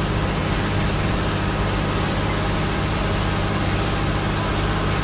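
Engine of a wooden passenger boat running steadily while underway, a low even drone with a steady hiss over it.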